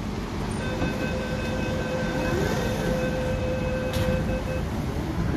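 Door-closing warning tone on an MTR K-Train: one steady tone lasting about four seconds while the sliding doors close, with a sharp knock about four seconds in as the doors shut. Steady train and station noise underneath.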